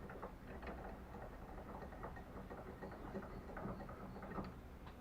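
Faint, irregular clicks and light knocks of a bicycle wheel and parts being handled and set down on a workbench.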